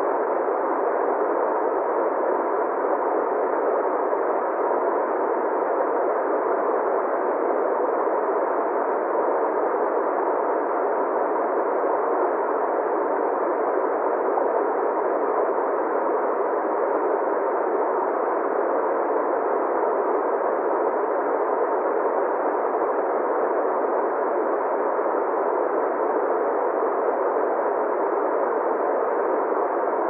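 Steady rushing of a small waterfall pouring over rocks into a stream, heard muffled, with no highs or deep lows, and a faint steady tone underneath.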